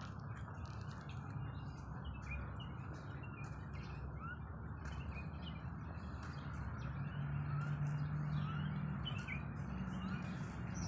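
Small birds chirping in many short, high calls over a steady low background hum that swells for a couple of seconds about seven seconds in.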